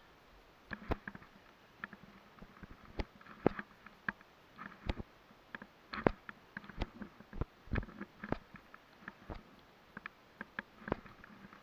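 Irregular clinks and knocks of via ferrata climbing gear: karabiners and lanyards knocking along the steel safety cable, and hands and boots on the iron rungs, some strikes with a short metallic ring.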